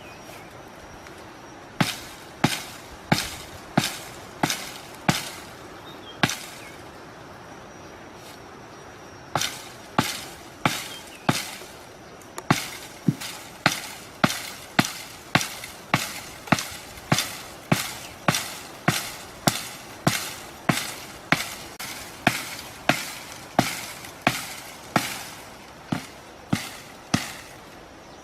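Repeated sharp chopping strikes of a blade on wood, about two a second, with a pause of about three seconds early in the run before the chopping resumes.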